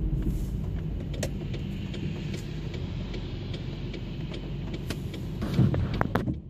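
Car interior in rain: a steady low engine rumble with scattered taps of raindrops on the body and windscreen. Cars pass by on the wet road, the loudest about five and a half seconds in, along with a windscreen wiper sweep. The sound cuts off just before the end.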